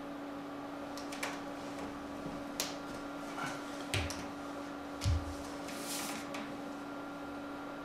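A person shifting on a sofa bed and getting up: a few soft knocks and rustles of the bed and its cover, and a low thud about five seconds in, over a steady low room hum.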